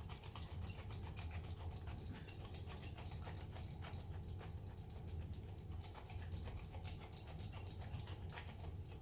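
Pecorino cheese being grated by hand, with quick, even, faint rasping strokes of about four or five a second.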